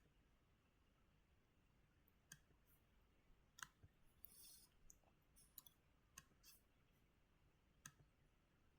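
Near silence with a handful of faint, separate computer mouse clicks spread over several seconds, and a brief soft hiss about halfway.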